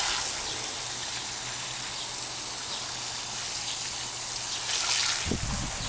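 Water spraying steadily onto an air-conditioner condenser coil, rinsing out foaming coil cleaner, with a short low bump about five seconds in.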